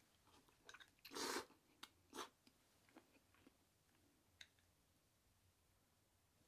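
Chopsticks and a ceramic noodle bowl being handled, giving a few light, sharp clicks, with two brief louder noisy sounds about a second in and just after two seconds.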